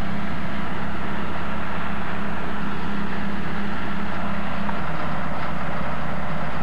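Diesel engines of heavy machinery, a tracked excavator and crawler dozers, running steadily with a low drone; the engine note shifts about five seconds in.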